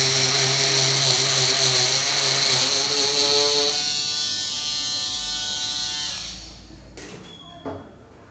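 Small handheld electric cutting machine's motor running at high speed, then switched off and winding down over about three seconds until it stops. Two short clicks follow near the end.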